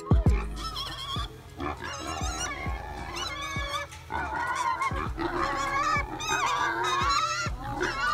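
Pigs squealing and grunting again and again, in wavering, pitch-sliding calls.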